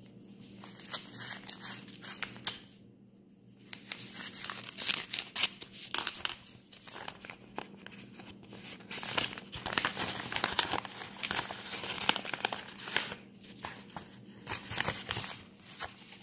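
Paper envelope being opened and handled by hand: irregular paper rustling and crinkling, with a brief lull about three seconds in.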